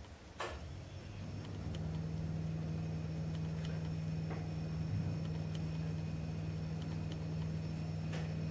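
A single click, then a steady low hum that builds up over about a second and holds evenly, with a few faint ticks over it.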